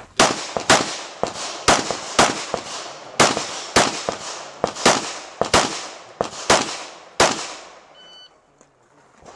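A string of pistol shots from a Glock 22 .40 S&W, about a dozen loud shots roughly half a second apart with fainter shots in between, stopping about seven seconds in.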